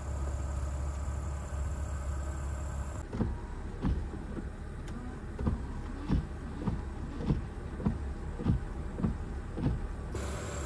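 The 1998 BMW 328is's straight-six idles with a steady low hum. About three seconds in, the sound switches to inside the cabin, where the windshield washer and wipers run. The wiper blades make a series of short thumps, roughly every half second to second, over the idle, and these stop near the end.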